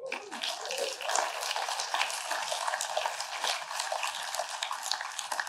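Congregation applauding, a dense patter of many hands clapping that begins to thin near the end.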